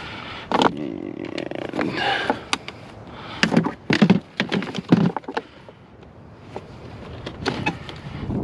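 Hand handling noise: a string of sharp clicks, knocks and rattles, busiest about half a second in and again around four to five seconds, as parts around a battery under a seat are moved and pulled at.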